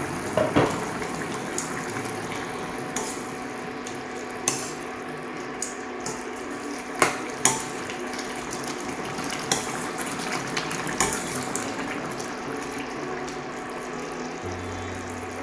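Chicken gravy bubbling steadily in a kadai, with a few sharp metal clinks of the lid and a spoon against the pan, two close together about seven seconds in.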